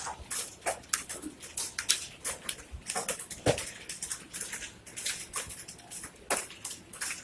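Many computer keyboards typed on at once: a dense, irregular clatter of overlapping keystroke clicks.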